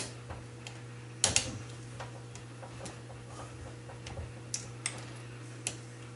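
Pliers clicking against the metal terminal tab of a 12-volt battery as the tab is bent up: a few sharp, scattered clicks, the loudest at the start and about a second in, over a steady low hum.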